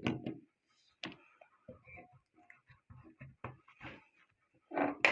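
Irregular small clicks, taps and light scrapes of watchmaking tools and a case vise being handled while a watch is set up for case-back removal, with a sharper click near the end.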